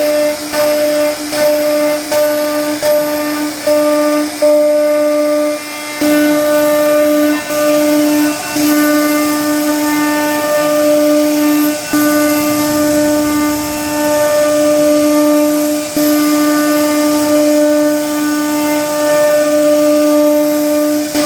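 CNC router spindle whining at a steady high pitch while carving a wooden door panel. The tone dips and picks up again every second or so as the bit moves through the wood, over a hiss of cutting.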